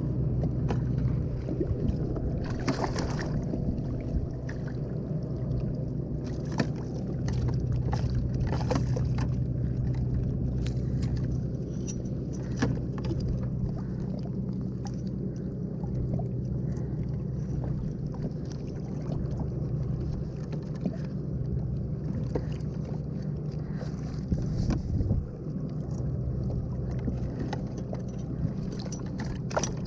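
Steady wind and water rumble around a fishing kayak at sea, with scattered clicks and knocks as a caught fish is unhooked and held in a metal lip grip.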